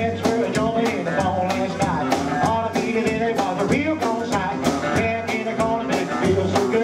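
Live rockabilly band playing: slapped upright double bass, drum kit with a steady beat, and electric guitar.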